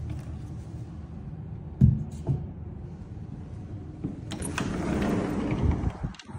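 Sliding glass patio door being handled: a sharp knock about two seconds in, then the door rolling open along its track with a scraping rumble for about a second and a half near the end.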